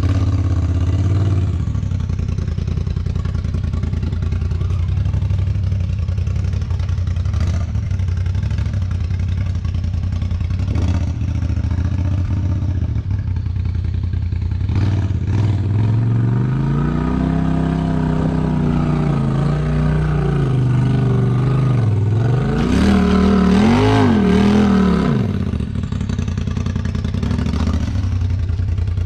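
Polaris RZR XP 4 Turbo side-by-side's turbocharged twin-cylinder engine running at low revs as it crawls at a rock ledge, with a few sharp knocks of the machine against rock. Past the middle the engine revs up and down in repeated pulls, loudest about three quarters of the way through.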